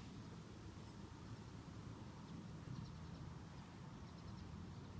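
Quiet open-air ambience: a steady low rumble, with two short, faint high chirping trills from a bird, one about halfway through and another a second later.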